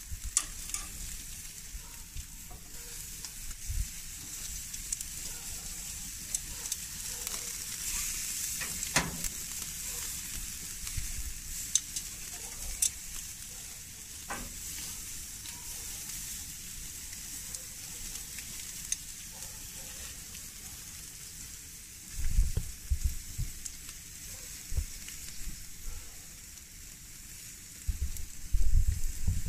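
Pork chops sizzling steadily on an infrared grill burner, with a few sharp metal clicks of tongs on the grate as the chops are flipped. A few low thumps in the last seconds.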